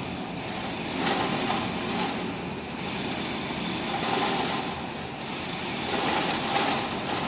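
Pipe roll-grooving machine running, turning the pipe as it presses the groove: a steady mechanical noise with a high whine that drops out briefly about three times.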